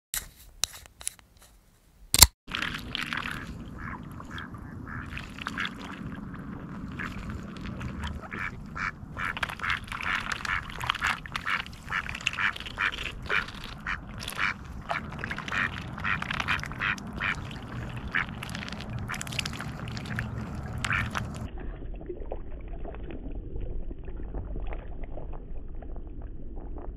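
Mallard ducks quacking in quick, repeated short calls. They stop about three-quarters of the way through, leaving a low steady rumble. It opens with a couple of seconds of near silence broken by a sharp click.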